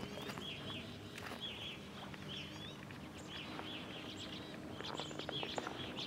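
A flock of evening grosbeaks calling: short, arching chirps, about two a second, some overlapping. A faint low hum runs underneath.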